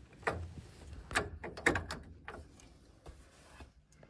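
A handful of sharp clicks and knocks as metal and plastic boiler parts are handled and fitted back together, most of them in the first half.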